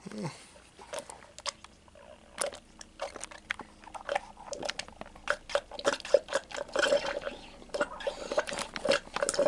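Drink being sucked up through a plastic straw from a paper cup: a run of wet, crackling slurps that grows denser and louder about six seconds in.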